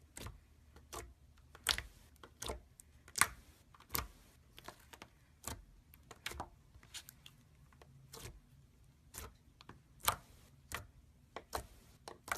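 Gold slime being squeezed and pressed by hand, giving irregular sharp wet clicks and pops, a few a second.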